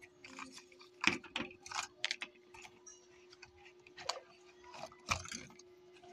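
Hands handling an electric meat grinder's plastic parts and its cardboard box, making irregular clicks, knocks and rustles, the loudest knocks about a second in and about five seconds in. A faint steady hum sits underneath.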